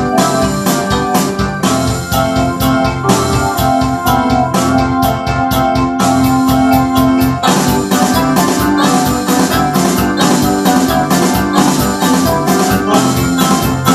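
Rock keyboard part played on an Ensoniq SD-1 synthesizer: chords and notes struck in a busy rhythm in a piano and organ-like keyboard sound, with a low held note near the middle.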